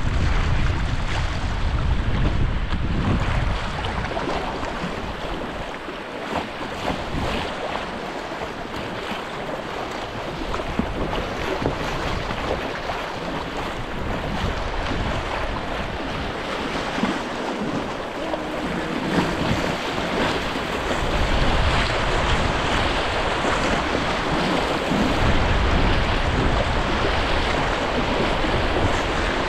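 Rushing, splashing river water in a shallow rapid around a kayak, with the splash of paddle strokes. Wind buffets the microphone in a low rumble at the start and again for the last several seconds.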